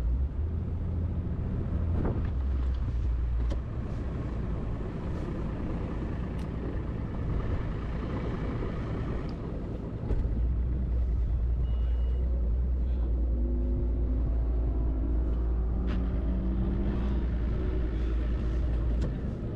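Bass boat's outboard motor running with a steady low rumble. It gets louder about ten seconds in.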